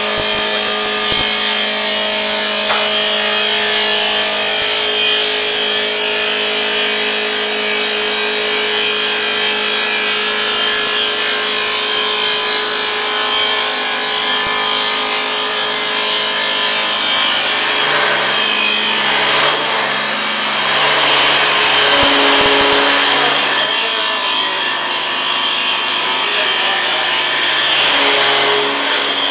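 CNC wood lathe turning a wooden spindle: a steady motor hum under the continuous hiss and rasp of the cutter shaving wood from the spinning blank. The hum changes pitch about two-thirds of the way through as the cut goes on.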